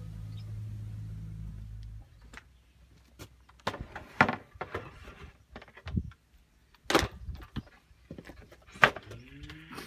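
A steady low hum for the first two seconds, then scattered sharp knocks and taps of hands handling the painted board top of a homemade table saw. Near the end a low hum rises in pitch and levels off.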